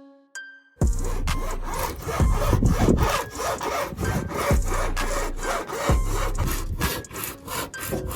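A steel cutting wire is sawn back and forth through the urethane bead holding a car's rear quarter glass, making a loud, rapid rasping that starts about a second in.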